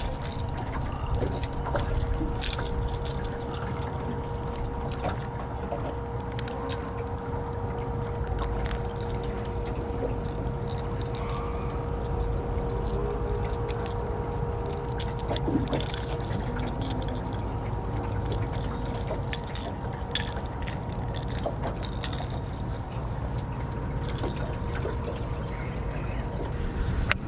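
Water lapping and splashing irregularly against a boat hull on a river, over a steady low rumble and a steady hum.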